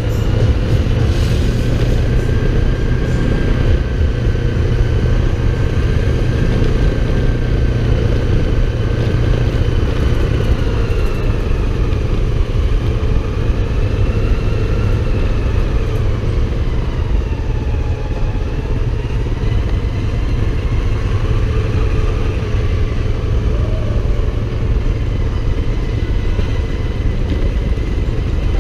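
Motorcycle engine running on the move, its pitch slowly rising and falling with the speed, over a heavy, steady low rumble.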